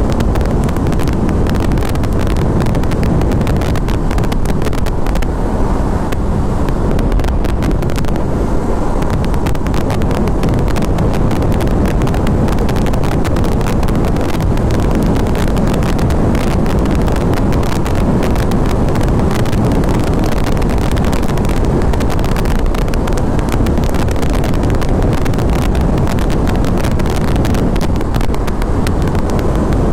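Steady wind rushing over the microphone of a motorcycle cruising at highway speed, with the bike's engine and tyre noise blended underneath.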